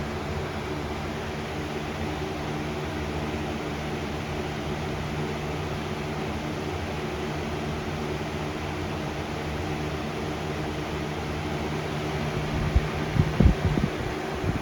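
Lasko B20200 20-inch box fan running steadily on high speed: a rush of air with a steady low motor hum, not too loud. A few low thumps near the end.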